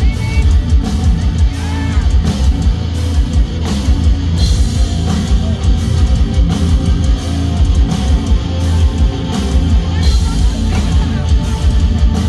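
Heavy metal band playing live, heard from the audience: loud distorted electric guitars, bass and a drum kit in a steady, driving groove.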